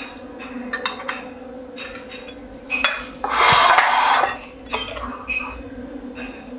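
Metal spoon clinking and scraping against a ceramic plate as rice is served, in scattered sharp clicks with one louder scrape lasting about a second halfway through.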